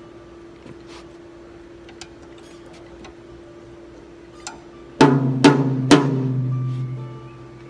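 Light clicks and knocks of drum hardware being handled over a faint steady hum. About five seconds in, a tom-tom is struck three times in quick succession during a sound check, each hit ringing on with a low pitch that fades over about two seconds.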